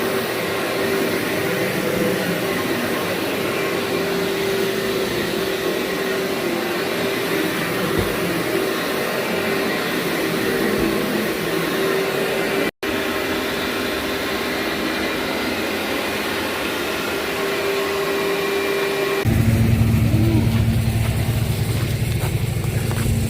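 Vacuum cleaner running steadily over carpet, with a held whine, cut off for an instant about halfway through. Near the end, a louder, deeper engine-like drone takes over.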